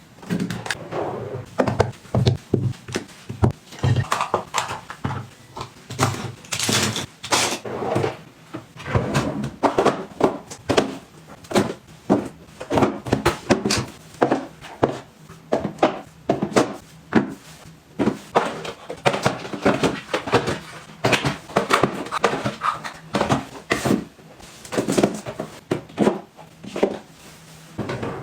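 Close-up handling sounds of items being picked up, set down and arranged: a steady run of small knocks, clacks and taps, with rustling in between.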